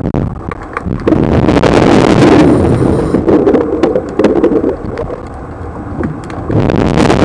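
Scuba diver's exhaled regulator bubbles rushing past an underwater camera housing: one long loud exhalation, a quieter spell about five seconds in, then the next exhalation starting near the end. A few light knocks on the housing near the start.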